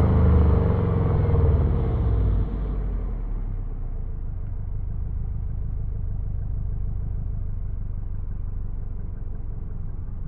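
Subaru turbo car engine and road noise while driving: a loud engine note falls in pitch, then drops away suddenly about two and a half seconds in, leaving a steady low rumble.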